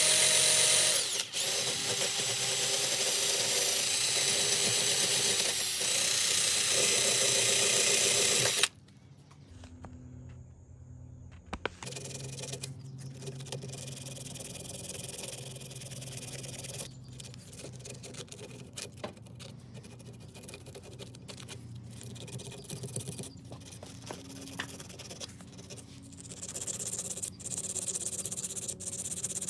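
A handheld power tool runs steadily with a high whir for about eight seconds, then cuts off suddenly. After that come quieter scattered clicks and rubbing.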